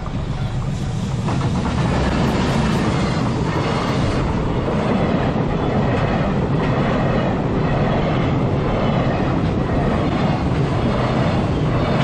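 A container freight train hauled by a JR Freight EF210 electric locomotive passes close by. The noise swells over the first two seconds as the train arrives, then holds steady as the container wagons' wheels clatter over the rail joints in repeated knocks.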